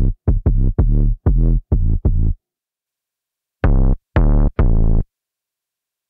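Omnisphere 'Deeper Sub Snap' synth bass patch from the Unclean Machine library, played as short, deep notes: a quick run of about seven notes, a pause of about a second, then three more notes.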